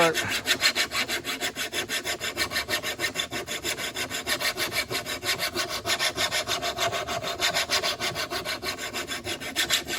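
Worn steel flat file being pushed across the edge of a steel lawn mower blade by hand, a rasping, scraping sound in quick, even back-and-forth strokes: the blade's edge being sharpened.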